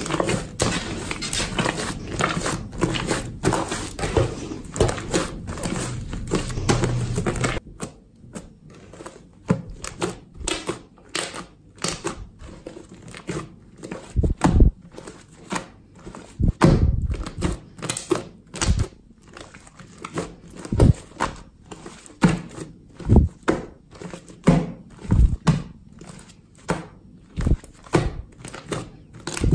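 Hands kneading and squeezing a large mass of slime mixed with shaving foam, making wet squelching. For the first seven seconds or so the squelching is dense and continuous; then it changes to separate squelches, about one or two a second, as the slime is stretched and pressed.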